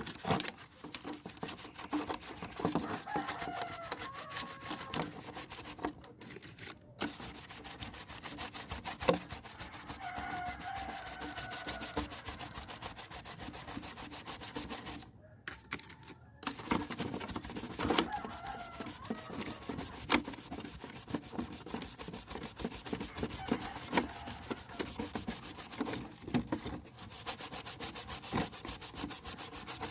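Rapid rubbing strokes on an RC car body as its paint is scrubbed off, stopping briefly about six seconds in and again about halfway through.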